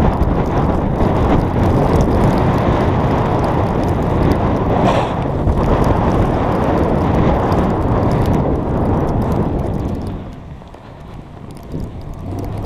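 Wind rushing over a helmet-mounted action camera's microphone, mixed with a snowboard scraping and hissing over snow while it is towed at speed. The noise eases for about a second and a half near the end, then picks up again.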